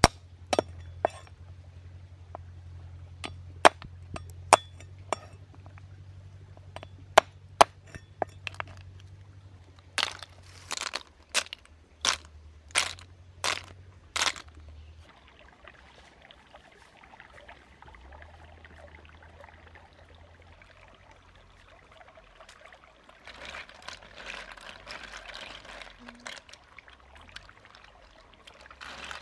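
Cleaver chopping snail shells on a wooden block: a run of sharp cracks, louder and closer together from about ten seconds in. Later, water splashing as the snails are swished about in a bamboo basket in a stream.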